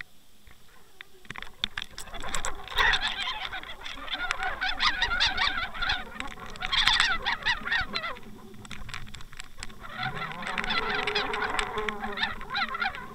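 Water rushing and rattling against an underwater action camera's housing as the fishing rig is reeled up toward the surface: a rough, clicking noise that starts about a second in and swells and fades twice.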